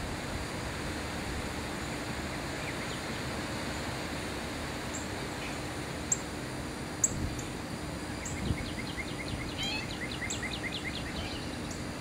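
Steady outdoor background hiss with a faint low hum, and wild birds calling over it: scattered short, sharp high chirps from about halfway, and a quick run of about a dozen chirping notes near the end.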